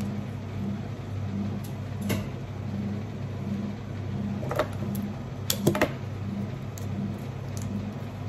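A steady low electrical or mechanical hum with a regular pulse about twice a second, under a few light clicks from handling flower stems, the loudest a quick cluster about five and a half seconds in.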